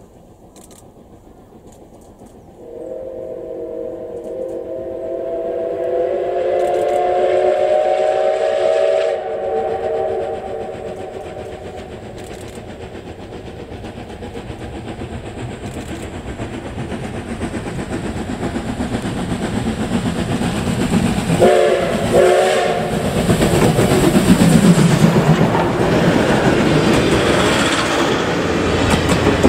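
Steam locomotive C57 180 sounding a long chime whistle blast of several tones together, lasting about six seconds, then two short whistle toots later on. Between and after the blasts the train's running noise grows steadily louder as it approaches.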